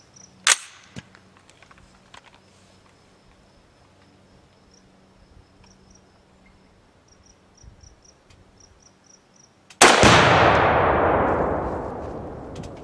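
A sharp click about half a second in. Near ten seconds in, an AR-15 shot sets off an ammonium nitrate exploding target: a single loud boom whose rumble dies away over about three seconds.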